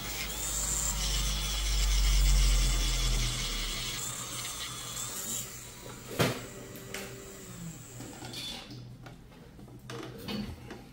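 Podiatry nail drill (micromotor) running and grinding against a nail, loudest in the first few seconds and then easing off. A sharp click comes about six seconds in, followed by lighter rubbing and small clicks.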